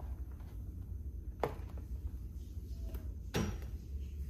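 Two dull knocks about two seconds apart over a low rumble: footsteps and handling noise from someone walking with a handheld camera.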